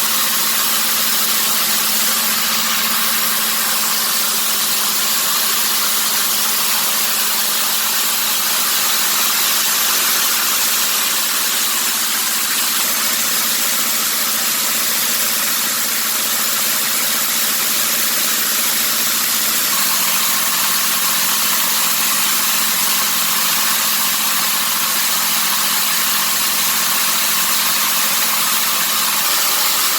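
Small locally built coffee huller running steadily while hulling dried arabica coffee, a constant motor hum under a dense, even hiss.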